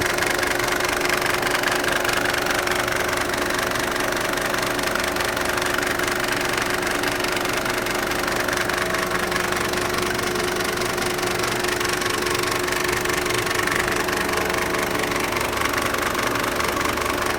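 Mercedes-Benz OM602 five-cylinder diesel engine idling steadily with a diesel knock. The owner says it runs rough and makes a weird noise near the belt tensioner and water pump since the idle was turned down from 1100 to 750 rpm at the injection pump.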